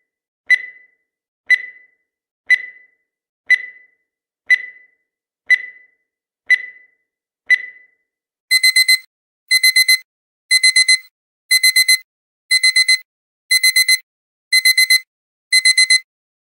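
Countdown timer sound effect: a short high beep each second, eight times, then the count runs out and digital alarm-clock beeping starts, quick groups of four beeps repeating every second.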